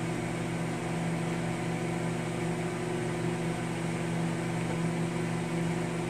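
Hamilton Beach countertop microwave oven running on a heating cycle: a steady low electrical hum under an even whir from its cooling fan.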